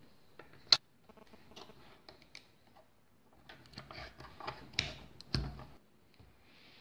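Plastic LEGO parts clicking and clattering as they are handled and set down on a wooden tabletop: one sharp click about a second in, a few light clicks after it, then a busier run of clicks and knocks with a duller knock near the end.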